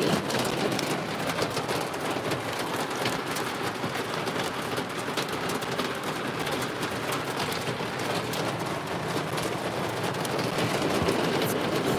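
Hail and heavy rain pelting a car's roof and glass, heard from inside the cabin: a dense, steady patter of many small hits.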